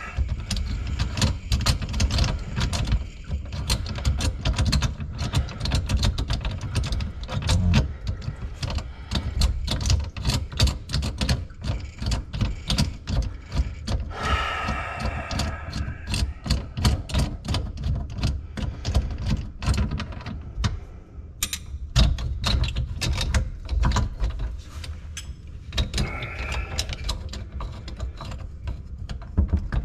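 Hand tools and plumbing parts under a kitchen sink being worked and handled: a steady run of rapid clicks, knocks and clatter, over a low rumble.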